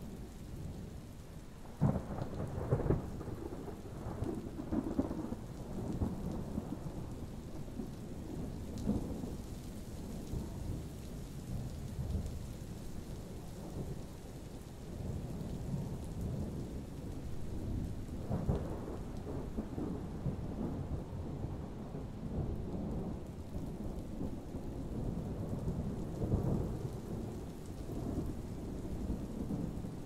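Thunder rolling over steady rain. A sudden clap about two seconds in opens a long low rumble, and further rolls of thunder swell up around the middle and near the end.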